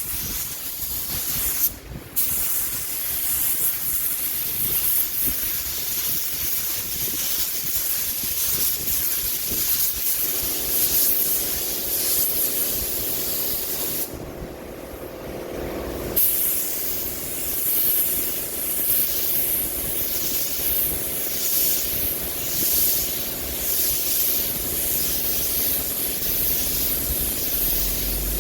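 Air spray gun hissing as clear coat is sprayed onto a bus panel, in repeated passes, with a short stop in the spraying about halfway through. A steady hum joins about ten seconds in.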